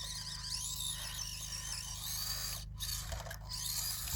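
Axial SCX24 micro crawler's small electric motor and drivetrain whining, the pitch rising and falling with the throttle as it climbs, cutting out briefly twice about two-thirds of the way through.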